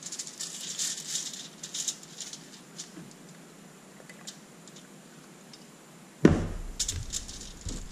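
Aluminium foil lining a baking tray crinkling and rustling as oily hands rub over it, quieter for a few seconds in the middle. A heavy thump about six seconds in, then more foil crinkling.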